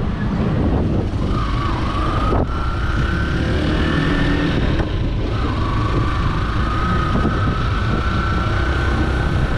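Motorcycle engine running under way, heard from the rider's seat, its whine climbing in pitch and dropping back twice, about two and a half and five seconds in.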